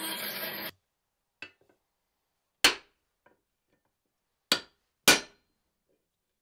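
A bandsaw cutting through a wooden axe handle, stopping abruptly under a second in. Then four sharp hammer blows on the hafted axe head, one light and three hard, as the head is fitted to its handle.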